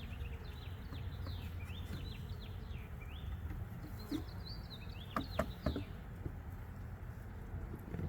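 Wild birds chirping and singing in quick short notes, with a steady low hum underneath and a few sharp clicks about five seconds in.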